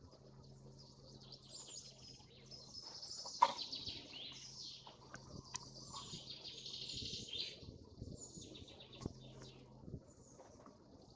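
Several small songbirds singing and chirping together in high, warbling phrases. A single sharp click cuts in about three and a half seconds in, and a faint steady low hum runs underneath.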